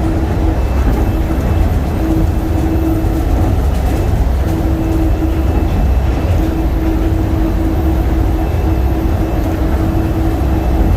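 Inside a DFW Skylink automated people-mover car running along its guideway: a loud, steady rumble, with a humming tone that fades in and out.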